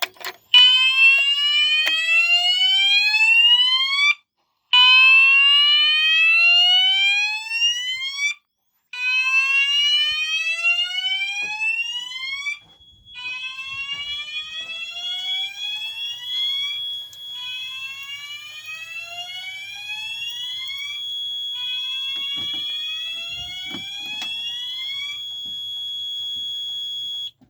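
Fire alarm sounders sounding the slow whoop evacuation tone: repeated rising sweeps, each about three and a half seconds long with a short break between. About halfway through, the sweeps get quieter and overlap, a steady high tone comes in, and everything cuts off suddenly near the end.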